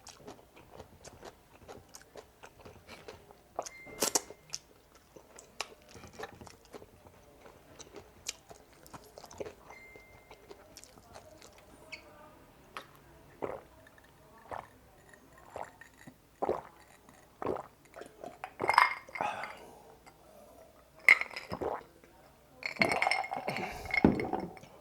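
Close-miked eating of spicy frog legs: wet chewing and crunching, with utensils clinking against a plate. The sounds grow louder and more frequent over the last few seconds.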